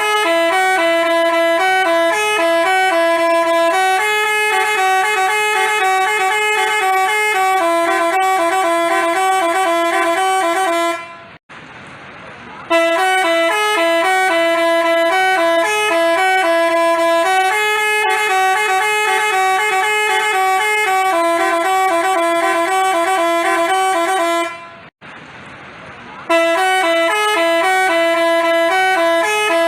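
Telolet basuri bus horn playing a fast multi-note melody of short stepping tones. It breaks off twice for about a second and starts the same tune over each time.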